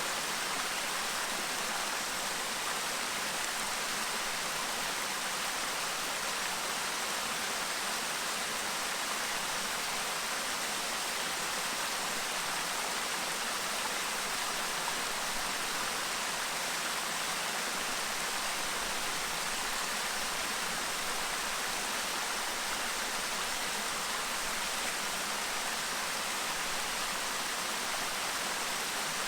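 Clear mountain stream babbling over rocks: a steady, even rush of water with no breaks.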